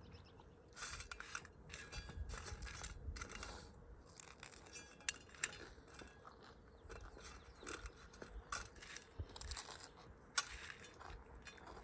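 Handling of food and dishes: irregular rustling and crunching, with a few light clinks and two sharp clicks, about five and ten seconds in.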